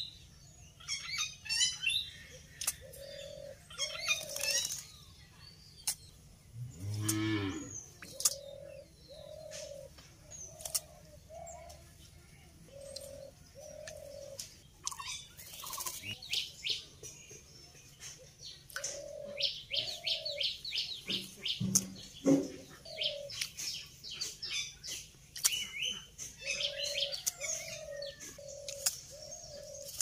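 Bird chirps and twittering in bursts, with a quick run of about a dozen chirps around twenty seconds in, over short low hooting notes that repeat in pairs throughout. A single low, drawn-out call sounds about seven seconds in.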